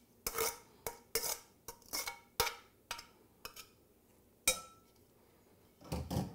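A metal spoon knocking and scraping drained shredded cabbage out of a stainless steel colander into a stoneware mixing bowl: a run of sharp clinks, two or three a second, then one ringing knock about four and a half seconds in. A duller thump comes near the end.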